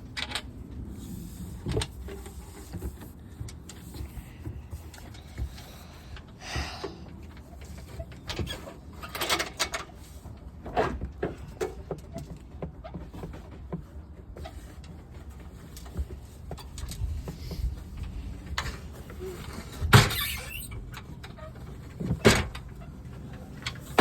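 Scattered knocks and clunks of gear being handled and set down, with the two loudest knocks about 20 and 22 seconds in.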